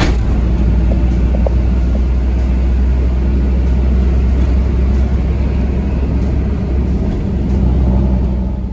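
Steady low rumble of a car on the move, engine and road noise, with one sharp click at the very start.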